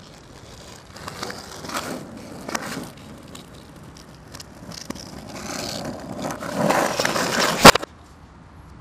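Skateboard wheels rolling on asphalt, swelling louder over a few seconds, then one sharp loud clack of the board near the end.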